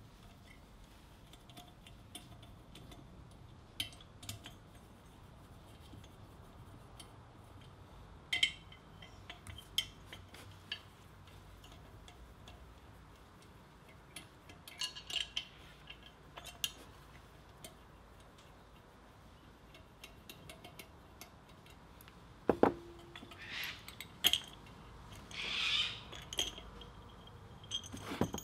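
Scattered metal clicks and clinks of a hand ratchet and 13 mm socket working the foot bolts on an electric motor, with quiet stretches between. A short cluster of clicks comes about halfway, a louder knock near the end, then a brief scraping rattle and more clinks.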